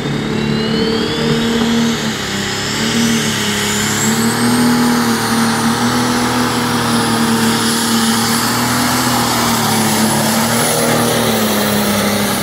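Light Superstock pulling tractor's turbocharged diesel engine running hard under load as it drags the brake sled, pouring out black smoke. A high whistle rises over the first five seconds and then holds high above the steady engine note.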